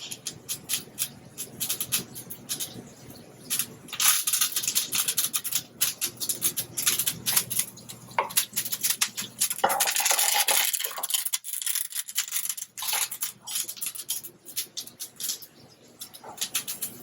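Black sea bass fillets frying skin-side down in hot oil and butter with sprigs of thyme, sizzling and spitting with many small crackles. The sizzle swells loudest for a couple of seconds past the middle.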